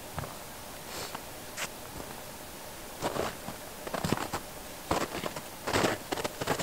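Footsteps of a person walking through snowy sagebrush, irregular steps that grow louder and more frequent over the last few seconds as the walker comes closer.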